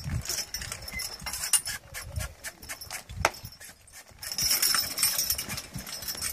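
Team of Belgian draft horses pulling a walking plow through sod: irregular clinks and knocks of trace chains, harness and plow, with a loud knock about three seconds in and a hissing scrape from about four seconds on.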